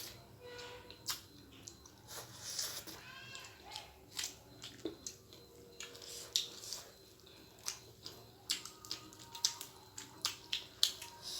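Close-up mouth sounds of someone eating spicy instant noodles: chewing, lip smacks and slurps, heard as many short sharp clicks and wet noises. About three seconds in there is a short, high, wavering whine.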